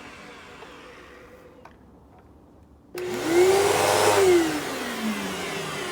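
Hoover Elite Rewind upright vacuum cleaner motor winding down at the start, then quiet with a couple of faint clicks. About three seconds in it switches on with a sudden loud start and a rising whine, runs briefly, then winds down again with a falling whine. The owner finds its motor bearings pretty dry.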